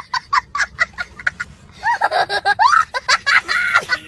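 A young boy laughing hard: a run of quick, short laughs, then higher squealing laughs that rise in pitch from about halfway through.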